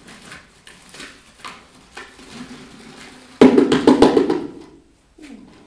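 A bottleful of small toy-soldier figures poured into a stainless steel pot: faint scattered clicks, then a sudden dense clattering rattle about three and a half seconds in that lasts over a second and dies away.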